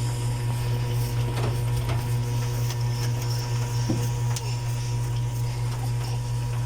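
A steady low hum, like a fan or household appliance, runs throughout. Over it come a few faint short clicks and a brief small squeak just before four seconds in, which fit a baby's hiccups.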